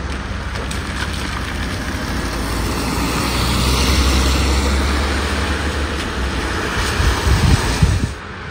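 A vehicle passes with its engine running, loudest about halfway through and then fading. Wind buffets the microphone near the end, and the sound drops off suddenly just before the end.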